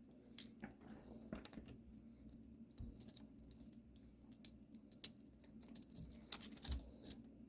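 Light, scattered clicks and small rattles of small plastic and metal parts and wires being handled, with quick clusters of sharper ticks about three seconds in and again near the end.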